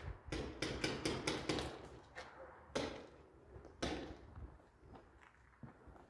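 Paintball marker shots: a quick run of about half a dozen sharp pops in the first two seconds, then a few single shots more widely spaced and fading.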